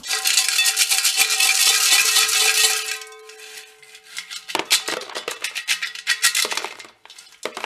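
Loose steel hardware rattling and clattering inside a steel mini-bike fuel tank as it is shaken and tipped, the tank ringing with each hit, used as a scouring agitator with lacquer thinner to clean out rust and sediment. A dense rattle for about three seconds, then quieter, scattered rattles.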